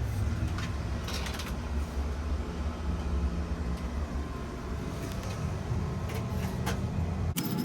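Steady low rumble of a car's interior while driving. A sudden brief hiss starts near the end.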